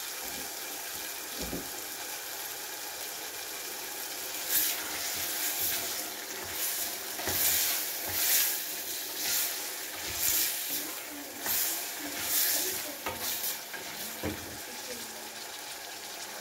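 Chopped tomatoes and onions sizzling in a saucepan while being stirred with a wooden spoon. From about four seconds in, each stroke of the spoon brings a louder swell of sizzle, about one or two a second.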